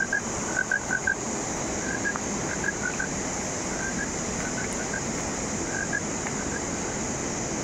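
River water rushing over stones in a steady wash, under a constant high-pitched hiss, with short chirping calls repeated in twos and threes throughout.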